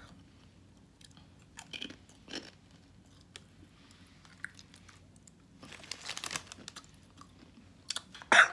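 A ridged Ruffles potato chip being bitten and chewed: scattered crisp crunches, then a denser run of crunching a little past halfway. A short, louder burst near the end as the chewed chip is spat out.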